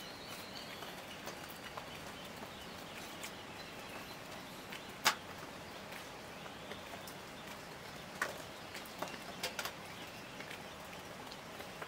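Quiet forest background: a steady hiss broken by a few sharp clicks, the loudest about five seconds in and several smaller ones between eight and ten seconds.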